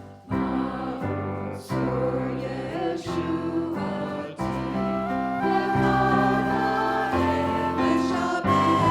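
Worship song: a group of voices singing together over instrumental accompaniment, coming in about a quarter second in.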